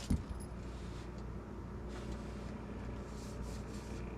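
Steady low mechanical hum, with a single short knock just after the start.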